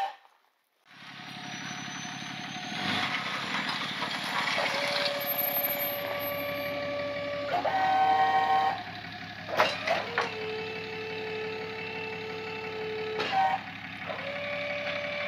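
Pickup-based tow truck's engine running steadily, starting about a second in. Over it is a whine that jumps to a new pitch several times, with two brief clanks.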